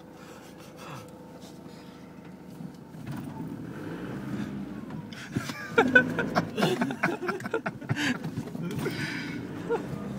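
Van running, heard as a low hum from inside the cab, with a jumble of knocks, clicks and rubbing starting about five and a half seconds in.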